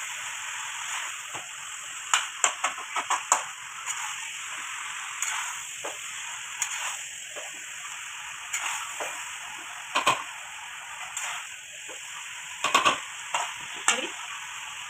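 Pork sizzling in a steel kadai while a metal spatula stirs it, with sharp clinks and scrapes of metal on the pan: a cluster a couple of seconds in, one at about ten seconds and more near the end.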